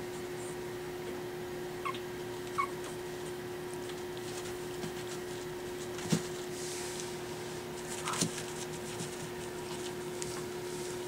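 Young Pekingese puppies whimpering in short high squeaks, two of them about two seconds in, with a few sharp knocks and scuffling as they play, over a steady low hum.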